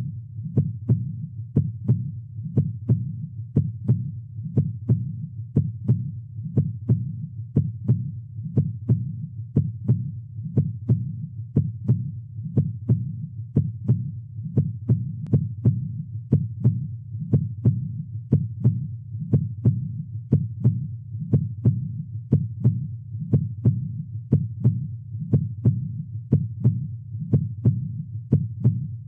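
Heart sounds beating steadily at about 60 beats per minute, a lub-dub on each beat: the first heart sound (S1, mitral valve closing) followed by the second (S2, aortic valve closing). A steady low rumble runs underneath.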